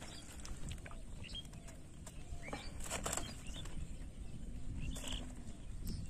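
Rustling and irregular flapping from a woven plastic sack as fish are worked off a many-pronged fish spear into it, with scattered crackles and a few short high chirps.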